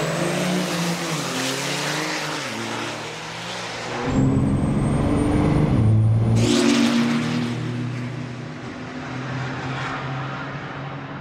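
Turbo-diesel pickup trucks accelerating hard at full throttle down a quarter-mile drag strip, engine pitch climbing and dropping through the gear changes. For a couple of seconds in the middle the sound is heard from inside a truck's cab, louder and deeper.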